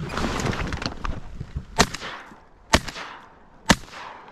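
A burst of rustling, then three 12-gauge shotgun shots about a second apart, likely from a Winchester SX4 semi-automatic.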